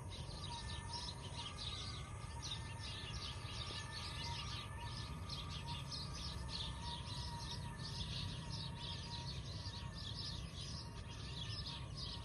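Birds chirping busily and continuously, with a faint steady wavering whine and a low rumble underneath.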